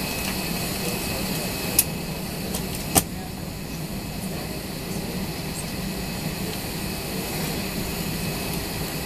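Steady cabin hum inside an Airbus A320neo standing on the ground, with two sharp clicks about two and three seconds in.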